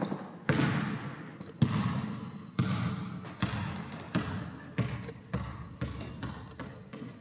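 A ball bouncing on a wooden sports hall floor, each bounce echoing in the hall; the bounces come quicker and fainter as the ball settles.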